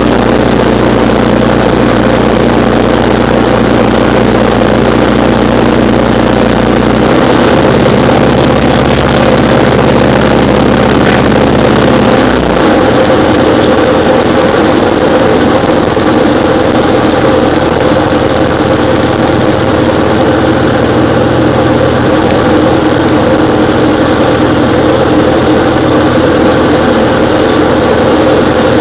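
Diamond DA20 Eclipse's four-cylinder Continental engine and propeller running steadily, loud from inside the cockpit. Its low note shifts twice, about a quarter of the way in and again a little before halfway.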